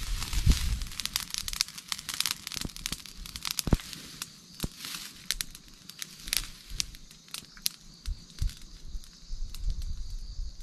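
Small fire of dry grass and twigs burning, crackling with many sharp pops that come thick at first and thin out toward the end. A steady high-pitched sound comes in about seven seconds in.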